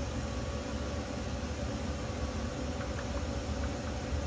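Steady background hum and hiss with a faint steady tone, and a few faint light clicks about three seconds in.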